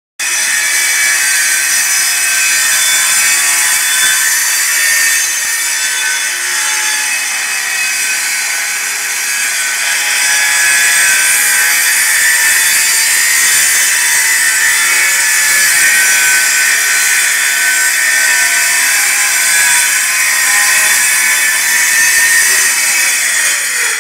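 Handheld circular saw cutting steadily through a wooden parquet floor, guided along a metal straightedge: a loud, continuous high whine of the blade in the wood, its pitch starting to drop near the end.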